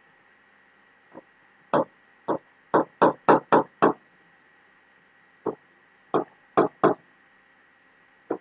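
Stylus writing on an interactive touchscreen board: about a dozen short taps and strokes, a quick run of them in the first half and a few more later, with silent pauses between.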